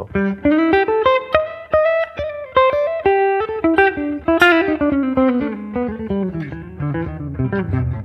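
Semi-hollow electric guitar playing a fast line of single picked notes, fretted firmly and picked gently so that every note sounds clear rather than hammered. The line climbs in pitch over the first half and falls through the second.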